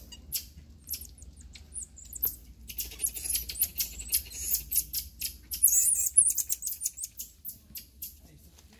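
Marmosets giving many short, high-pitched chirps and squeaks while feeding together, the calls coming thick and fast in the middle and thinning out near the end.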